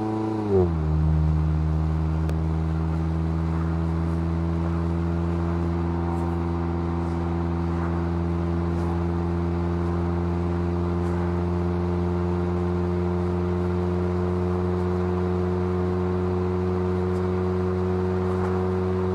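Mazda MX-5's inline-four engine through its stock exhaust: the engine note drops sharply about half a second in, with a brief thump at that moment, then holds at a steady low rpm.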